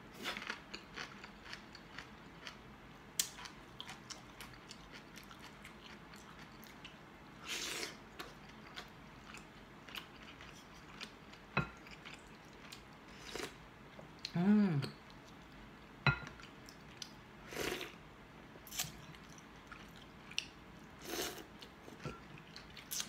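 Close-up eating sounds: crunchy chewing and biting of bok choy, with several short slurps of ginger chicken broth from a wooden spoon. There is a brief hummed "mm" about two-thirds of the way through.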